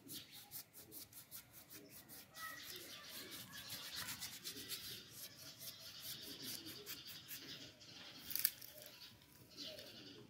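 Small paintbrush scrubbing paint onto an unglazed terracotta pot in quick short strokes, with one sharp tap a little after eight seconds in.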